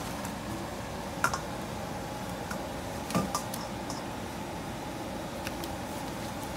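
Hard crab shells and legs clicking and knocking as live crabs are handled: a few sharp clicks, with two louder knocks about a second in and about three seconds in, over a steady low background hum.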